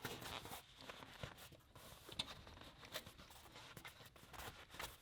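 Near silence with a few faint, scattered small clicks and rustles of hand handling.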